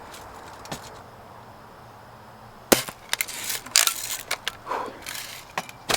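Shots in a BB gun versus slingshot contest: a quick, irregular run of sharp snaps and clicks, from a Daisy Red Ryder BB gun and a slingshot firing and their shots hitting small targets, starting about halfway through.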